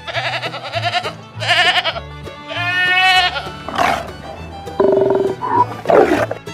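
A series of bleats, several separate calls with a wavering, quavering pitch, over background music with a steady bass line.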